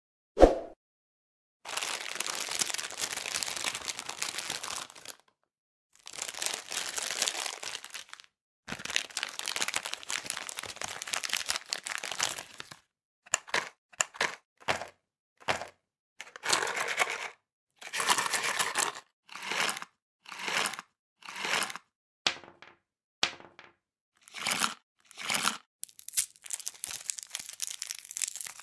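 Candy wrapper crinkling: three long stretches of crinkling, then many short crinkles about a second apart. A single sharp knock, the loudest sound, comes just at the start.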